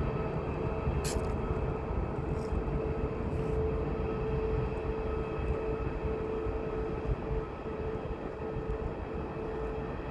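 Boeing 737-900's CFM56-7B turbofan engines running with a steady rumble and hum as the jet climbs away after takeoff, slowly fading. A single sharp click about a second in.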